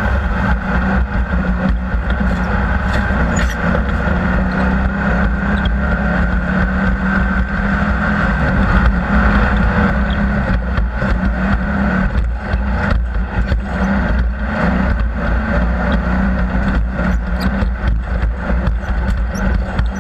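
Engine of an off-road race vehicle running steadily, with frequent knocks and rattles over it.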